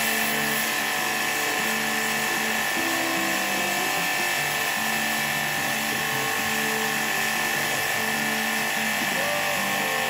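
Mini electric high-pressure washer pump running steadily with a high whine while its spray gun jets water into the air conditioner's indoor coil.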